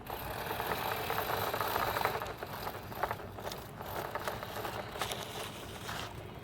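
Small toy remote-control car's electric motor whirring as it drives off road, with rattling and scraping of its plastic wheels and body over rough ground.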